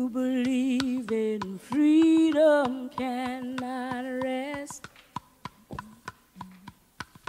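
A single unaccompanied voice singing long held notes with a slight vibrato, stopping a little under five seconds in. Then a scatter of sharp clicks.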